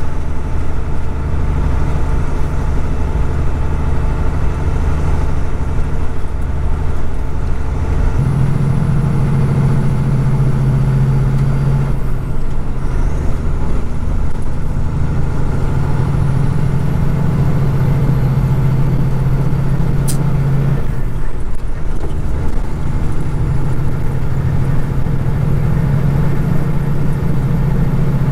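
Kenworth road-train truck's diesel engine running steadily under way. Its low drone shifts in pitch several times.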